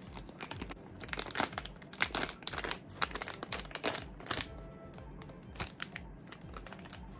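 Crinkly wrapper of an astronaut ice cream pouch crackling and tearing as it is ripped open by hand, with quick irregular crinkles over quiet background music.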